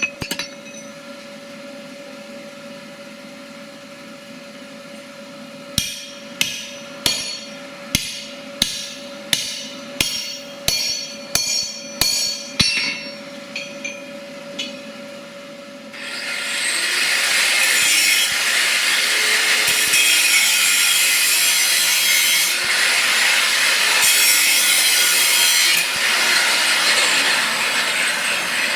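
About a dozen sharp, ringing hammer blows on metal, about one and a half a second, over a steady hum. Then a loud, continuous rasping of metalwork begins and runs on, surging in regular strokes.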